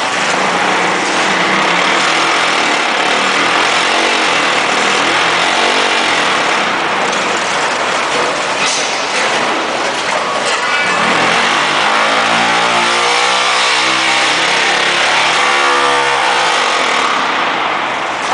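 A block-making machine running loudly, a steady, dense mechanical noise. About two-thirds of the way through, a pitched motor hum swells and shifts up and back down in pitch for a few seconds.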